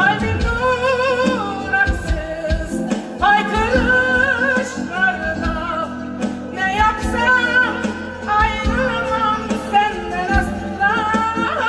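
Woman singing a Turkish art music (Türk Sanat Müziği) song live into a microphone, her long held notes wavering with vibrato, over an instrumental ensemble with regular low percussion beats.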